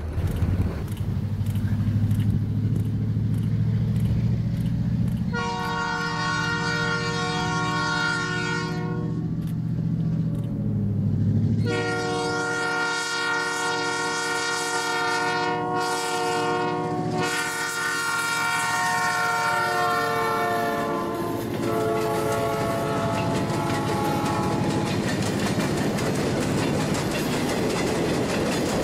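Diesel locomotive air horn sounding a chord in several long blasts over a low engine rumble as a passenger train approaches. The last blast drops in pitch as the locomotive passes. It is followed by the steady rush and clickety-clack of passenger cars rolling by.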